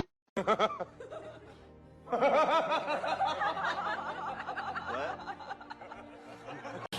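People laughing and giggling in quick rising and falling bursts, with music underneath.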